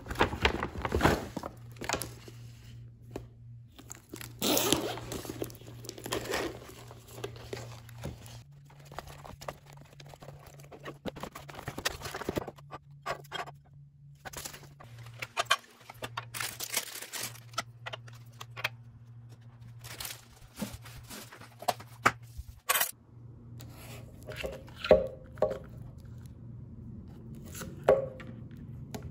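Shopping packaging being torn open and crinkled by hand in a series of irregular rustles and sharp tearing strokes, over a low steady hum.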